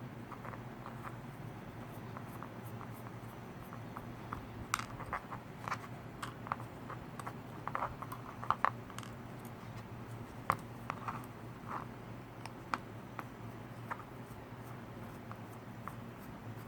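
Scattered small clicks and scratches of hand tools and tiny parts being handled while a brushed micro quadcopter is taken apart, thickest in the middle, over a steady low hum.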